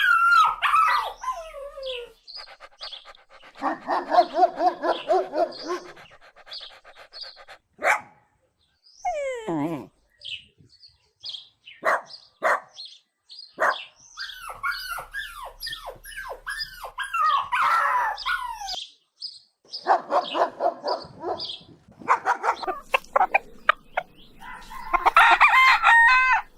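A string of different animal and bird calls, one after another, some with short silent gaps between them. They include falling, gliding cries, rapid pulsing calls and sharp clicks.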